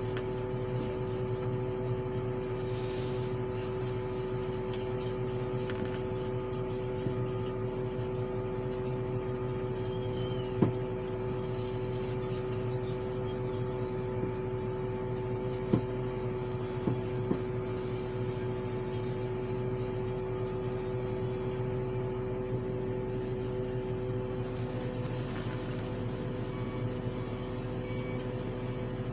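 Heavy diesel engines of dump trucks and wheel loaders running steadily: a constant low hum with a steady whine over it, broken by a few short knocks.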